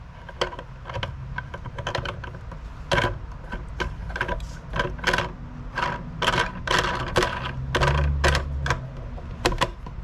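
Irregular small metallic clicks and taps, a few each second, of screws and mounting hardware being handled and screwed into a metal fuel-can bracket.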